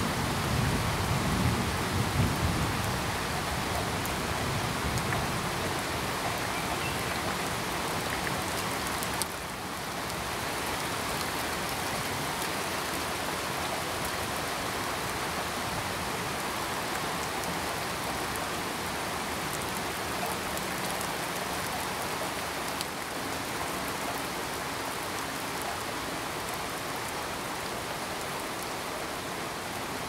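Steady heavy rain falling, with a low rumble of thunder in the first few seconds. The level dips slightly about nine seconds in.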